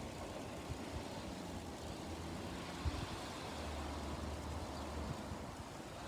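Faint, steady low rumble of a distant vehicle, a little stronger in the middle.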